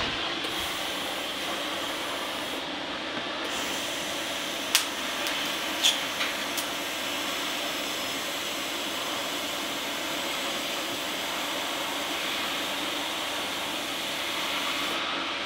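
MIG welding arc hissing steadily as a stainless handrail is tack-welded at the bottom of the stairs, with a short break about two and a half seconds in and a few sharp pops between about five and seven seconds in. The hiss stops near the end.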